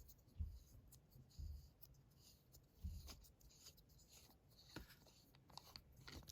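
Faint scraping and a few soft knocks of a screw-threaded section of a sonic screwdriver replica being twisted off by hand to open the battery compartment.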